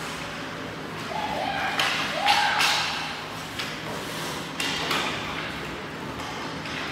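Ice hockey game sounds in an echoing arena: short scraping and knocking sounds from skates, sticks and puck, loudest about two and a half seconds in, with shouting voices.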